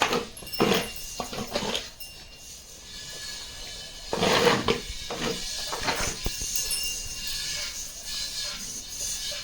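A farm animal calling several times in short calls, the loudest about four seconds in, over a steady background hiss.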